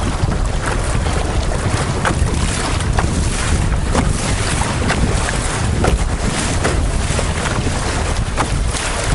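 Wind buffeting the microphone over the rush of a fast, choppy river riffle, with scattered splashes of water against the canoe.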